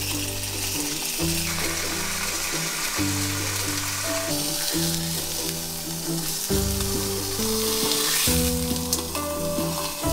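Slices of sausage frying in hot oil in a pan, sizzling steadily, the sizzle strongest about three-quarters of the way through. Background music with a repeating bass line plays underneath.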